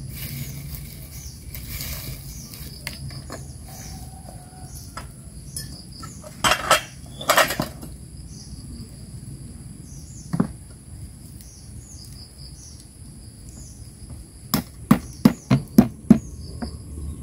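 Stone pestle pounding boiled jengkol beans in a black stone mortar (ulekan and cobek): a quick run of about six sharp knocks near the end. A few earlier knocks come as the mortar is handled and set down. Insects chirp steadily in the background.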